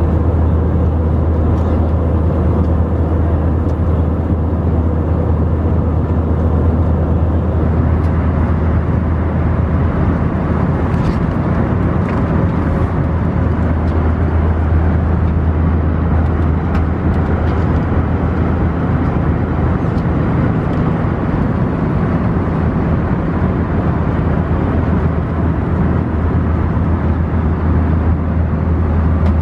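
Airbus A319 cabin noise in flight: a steady deep drone of the engines and airflow.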